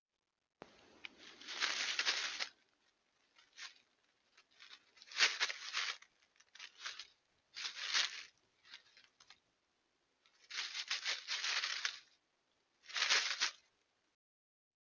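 Coyote's paws and snout rustling and crunching through dry fallen leaves, in repeated irregular bursts of up to about two seconds with short quiet gaps between.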